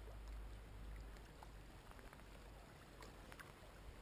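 Near silence: a faint steady low rumble of open-air ambience, with a few faint ticks.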